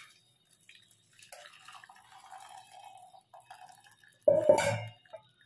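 Faint dripping and trickling of water from boiled noodles draining in a wire strainer over a glass bowl. About four seconds in, a short, loud metallic clatter with a brief ring as a stainless steel bowl is set down on the counter.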